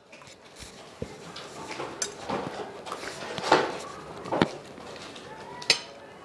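Irregular clinks, knocks and clatters of glassware and tableware being handled on a table, with a few louder clatters in the second half.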